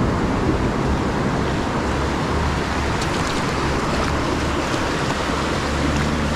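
Sea surf breaking and washing over low rocks at the shoreline, a steady rush of foaming water.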